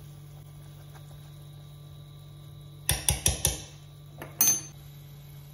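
Metal kitchen utensils clattering: a quick run of four sharp clinks about three seconds in, then two more a second later, over a steady low hum.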